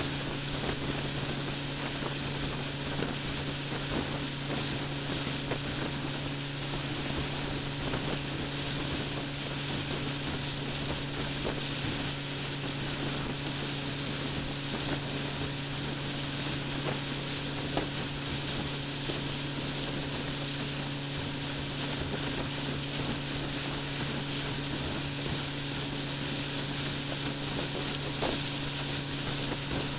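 Small ferry boat's engine running steadily at a constant speed, an even hum, with wind noise on the microphone.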